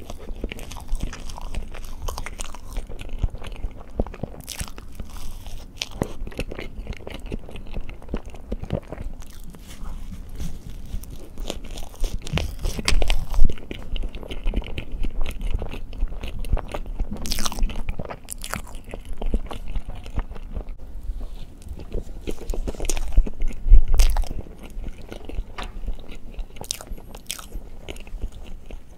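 Close-miked chewing of chocolate treats, steady crunching with wet mouth clicks. There are louder crunches about halfway through and again a little later.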